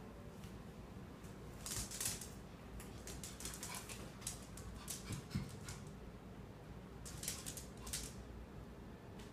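A small dog's claws clicking and scrabbling on a hard floor in short flurries, with one dull thump about five seconds in.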